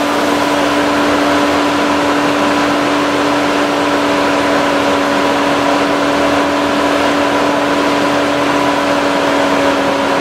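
A 2006 Volvo XC90 running: a steady mechanical hum with a few unchanging tones over a rushing noise, heard up close at the front of the car.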